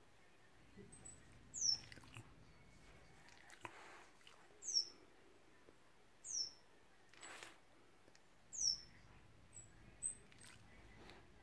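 A bird calling: four loud, high notes, each sliding down in pitch, spaced two to three seconds apart, with short, softer high chirps in between.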